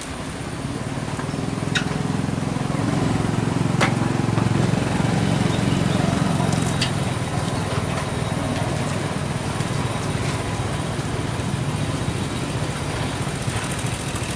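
A small engine running steadily, growing louder over the first few seconds and then holding.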